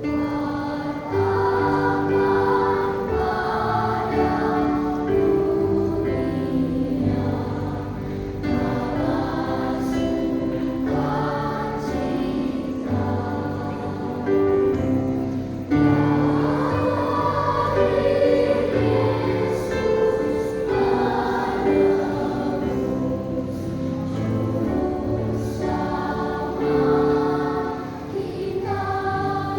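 Children's Sunday-school church choir singing a hymn in unison phrases over instrumental accompaniment.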